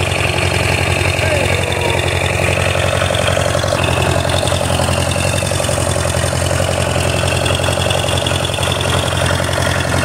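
Old farm tractor's engine running steadily at a low, even speed.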